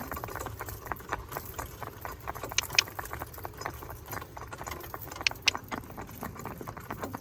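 Ponies' hooves clip-clopping in a quick, busy rhythm over a steady low rumble, with two pairs of sharper clicks standing out, the first about two and a half seconds in and the second near five seconds.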